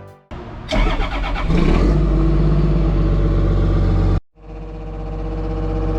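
Heavy-equipment diesel engine cranking and catching, then running steadily. About four seconds in, a sudden cut leads to another stretch of steady engine running that slowly grows louder.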